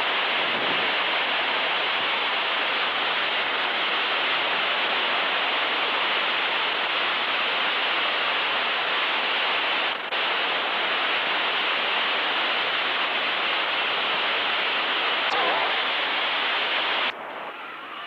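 A steady, loud rushing noise with no pitch, briefly dipping about ten seconds in, then cutting off abruptly near the end.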